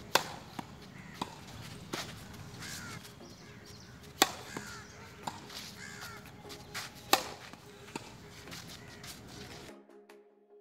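Tennis ball struck hard with a racket three times, about three seconds apart, with softer knocks of the ball bouncing in between. Birds call faintly in the background. The sound cuts out near the end.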